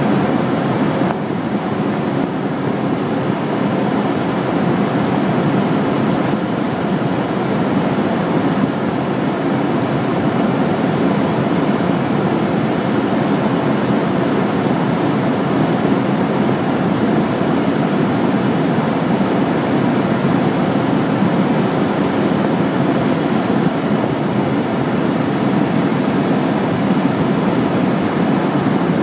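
Steady aircraft engine and airflow noise heard inside the cockpit on final approach. A faint steady hum drops out about a second in.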